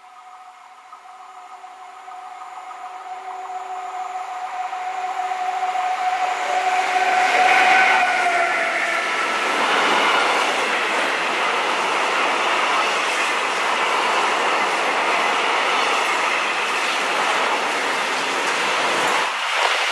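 Electric locomotive hauling a freight train of tank wagons, approaching and growing louder with a steady whine that ends as it passes close, about eight seconds in. The tank wagons then roll past with a steady rumble of wheels on the rails.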